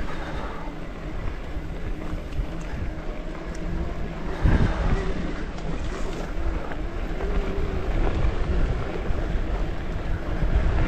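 Wind buffeting the microphone over the rumble of a mountain bike's tyres on a dirt trail, with a louder jolt about four and a half seconds in.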